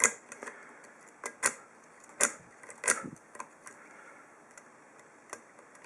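Metal lock pick raking the pins of a TESA padlock's half euro cylinder, giving sharp, irregular clicks a fraction of a second to about a second apart as the pick drags over the pin stacks under tension.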